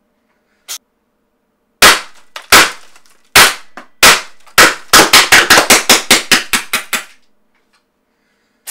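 Tiberius T8.1 CO2 paintball marker firing breaker balls into a plaster-and-silicone head target. First come five single shots about two thirds of a second apart, then a fast string of about a dozen more, around five a second, that stops suddenly.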